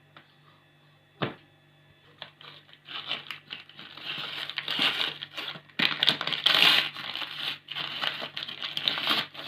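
Plastic packaging crinkling and rustling in repeated bursts as food packets are handled, after a single sharp knock about a second in.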